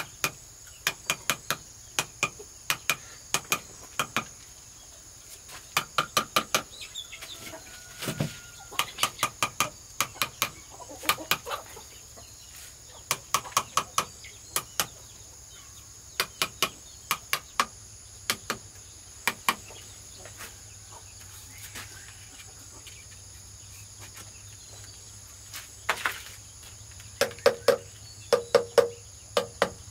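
Chickens clucking in short quick runs of pulses throughout, loudest near the end, over a steady high trill of crickets.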